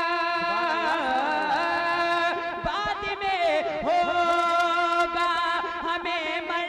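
A male voice sings a wordless, winding melismatic passage of a naat recitation over a steady held drone.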